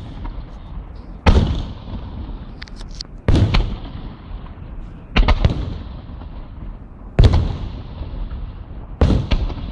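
Fireworks petards bursting: five loud bangs at a steady pace about two seconds apart, each trailing off in a rumbling echo, with a few small crackles between the second and third.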